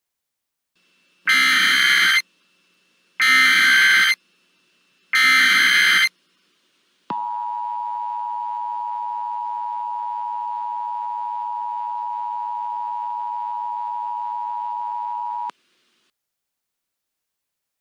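Emergency Alert System test tones. First come three short bursts of digital header data, about two seconds apart. After a second's pause, the two-tone attention signal (853 and 960 Hz) sounds, a steady buzzing tone held for about eight seconds and then cut off sharply.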